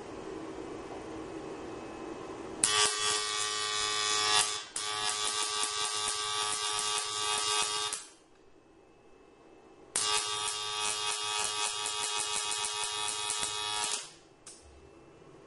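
High-voltage arc buzzing across the two curved wire electrodes of a pair of ignition coils doubled up for high-voltage output. It starts after a quieter steady hum, runs for about five seconds with a brief break, stops, then buzzes again for about four seconds.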